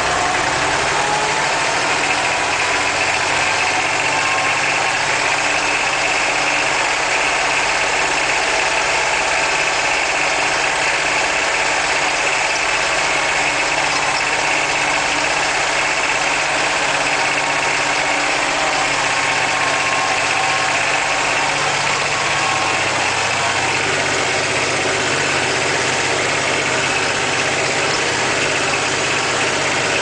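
IMT 542 tractor's diesel engine running steadily at about 1800 rpm under ploughing load in first gear, heard from inside the cab.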